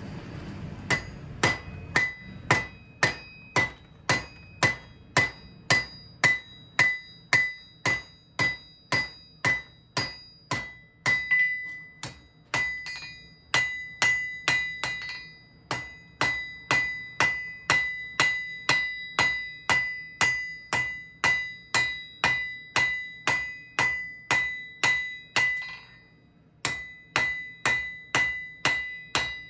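Blacksmith's hammer forging a red-hot mild steel bar on an anvil, about two blows a second, each blow ringing out. There are short breaks in the hammering near the middle and near the end.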